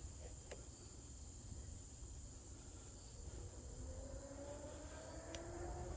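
Steady high-pitched drone of crickets, with a few faint clicks and a low background rumble.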